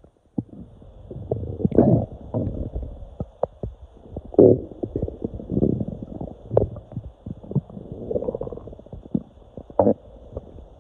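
Human stomach and intestines rumbling and gurgling: irregular squelches and short pops, with louder gurgles about two and four and a half seconds in. It is the sound of air moving through cramping intestines.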